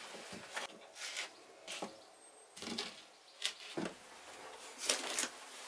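A person moving about and handling things: footsteps, scattered light knocks and clicks, and soft rustling, with a few sharper knocks about three and a half seconds in and near the end.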